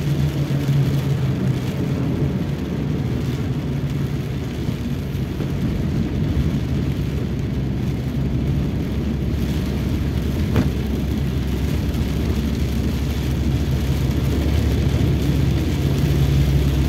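Cabin noise of a Toyota Rush on the move on a wet road: a steady low engine and road drone with the hiss of tyres on water, growing a little louder near the end. A single brief click comes about two-thirds of the way through.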